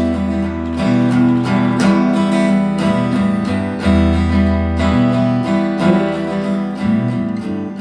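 Live acoustic guitar strumming a steady rhythm, with low bass notes changing about once a second underneath: an instrumental passage of a folk-country song, with no singing.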